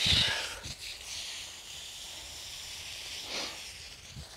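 Garden hose spray nozzle spraying water onto the soil and plants of a vegetable bed: a steady hiss, loudest with a short burst at the very start and swelling again briefly about three and a half seconds in.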